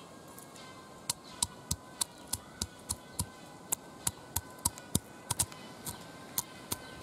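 Stone pestle pounding peeled garlic cloves, crushing them for garlic paste: sharp knocks about three a second, starting about a second in.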